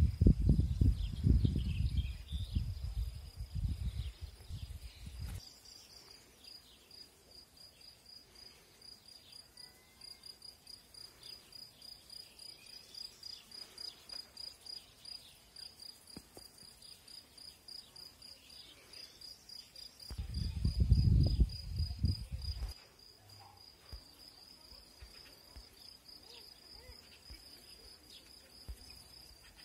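An insect chirping steadily in a rapid, even, high-pitched pulse. Loud low rumbling noise covers the first few seconds and comes again about two-thirds of the way through.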